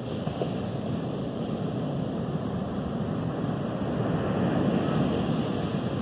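Ocean surf breaking on the shore and against rocks, a steady rush that swells to a peak about two-thirds of the way through, with wind buffeting the microphone.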